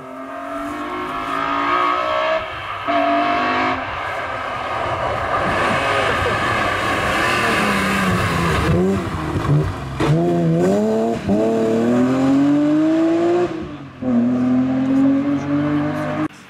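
BMW M3 E36 rally car's straight-six engine at full throttle, revving up through the gears with quick upshifts as the car approaches, revs dropping under braking about halfway through and then climbing hard again as it accelerates away.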